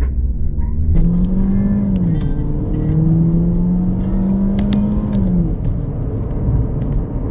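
Mini Cooper S engine accelerating hard from a launch-control start, heard from inside the cabin. The engine note comes in about a second in, drops once as the automatic gearbox shifts up, pulls again with rising pitch, then falls away as the throttle is eased near the end.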